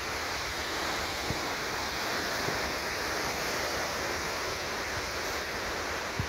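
Steady rush of sea surf breaking on rocks at the foot of a cliff, with wind buffeting the microphone in a few low thumps.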